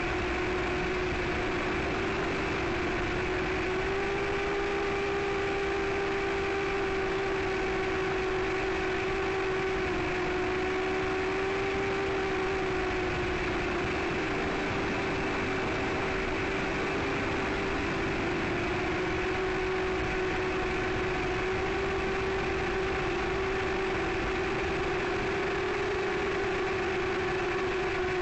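A 5-inch FPV quadcopter's Emax RS2205 2600kV brushless motors and DAL Cyclone 5040 propellers whine steadily in cruise flight, heard through the onboard camera's microphone along with the rush of air. The pitch drifts a little up and down with the throttle.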